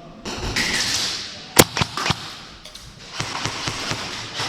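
Three sharp clicks close together, the first and loudest about a second and a half in, among a rushing noise and scattered softer ticks.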